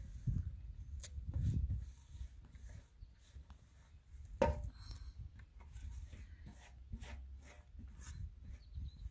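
Hands scraping and wiping chopped leafy greens off a steel tray into a metal pot, light rubbing and clicks over a low rumble, with one sharp metallic knock about four and a half seconds in.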